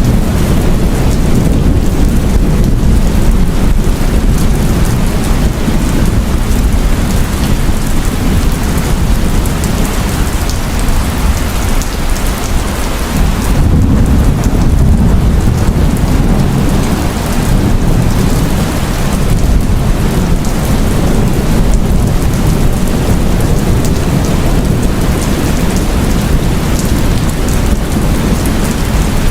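Heavy rain pouring steadily, with a continuous low rumble of thunder underneath that swells and fades about halfway through.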